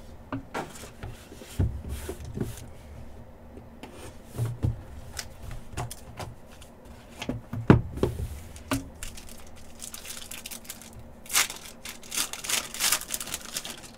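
A hard trading-card box case being handled: scattered clicks and knocks as its latches and lid are worked, with one sharper knock about eight seconds in. Near the end a foil card-pack wrapper is torn open and crinkles.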